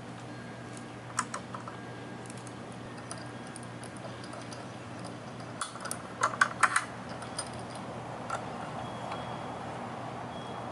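Metal C-clamps and wooden boards clicking and knocking together as the clamps are fitted over a board laid across a clamped cedar panel. A few light clicks come about a second in, and a quick run of sharper clicks and knocks comes about six seconds in.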